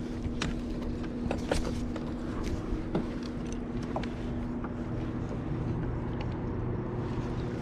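Small fishing boat's motor running steadily, with a few light knocks.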